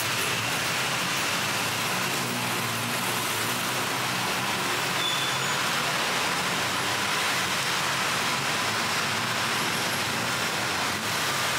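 Steady road traffic on a busy city street: vehicle engines running and tyres on the road, blended into an even roar with no single sudden event.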